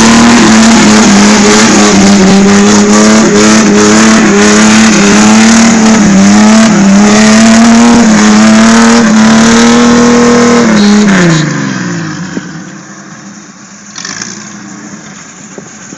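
Six-cylinder Jeep engine revved hard and held at high revs for about ten seconds, the note wavering slightly, then the revs fall away and it drops to a low rumble.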